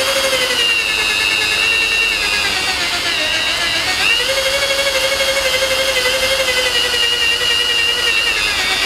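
Drill spinning a rubber eraser disc against car paint, rubbing off leftover double-sided badge tape. A steady motor whine that dips briefly in pitch about four seconds in, then winds down at the end.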